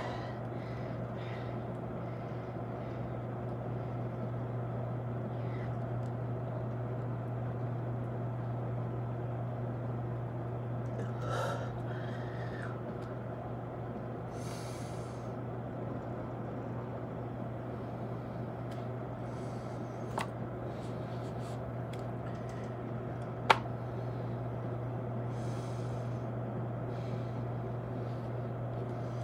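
A man breathing hard in short puffs between push-ups, over a steady low hum. A sharp click stands out about three-quarters of the way through.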